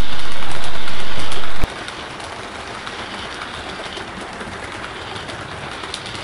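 A Hornby OO-gauge Class 50 model diesel and its coaches running along layout track: a steady running noise with light clicking from the wheels on the rails. The level drops sharply about a second and a half in.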